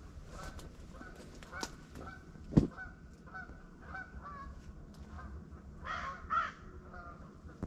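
A flock of geese honking over and over, with louder calls near the end. One sharp bang cuts in about two and a half seconds in and is the loudest sound.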